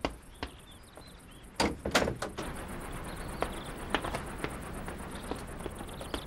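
A few sharp, isolated knocks, then a louder clatter about one and a half seconds in. After that, a steady outdoor background with faint insect chirps and light footsteps on stone.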